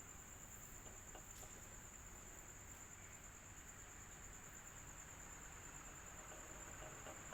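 Electric fan running steadily and faintly, an even hiss with a low hum and a continuous high-pitched tone over it.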